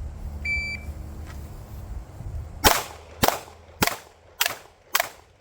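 Shot timer's start beep, then about two seconds later five pistol shots fired at an even pace, roughly 0.6 s apart, during a timed drill.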